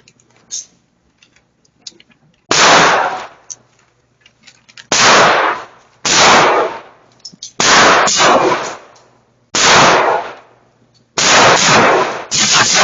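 Gunshots at a shooting range: about seven loud shots at irregular intervals of one to two and a half seconds, each trailing off in a ringing echo, with two close together near the end.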